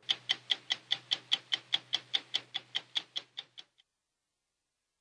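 Stopwatch ticking steadily, about five ticks a second, over a faint low hum. It stops about three and a half seconds in.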